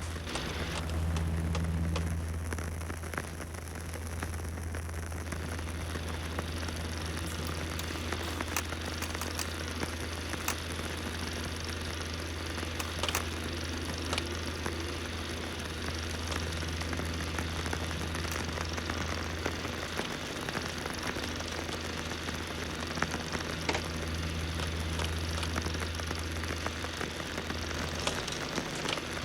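Old-film sound effect: a steady low hum under constant hiss and crackle, with scattered sharp pops and clicks, like worn 8mm film running through a projector.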